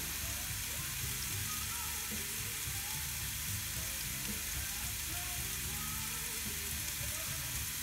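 Ribeye steak sizzling steadily between the closed hot plates of a Tefal Optigrill XL contact grill.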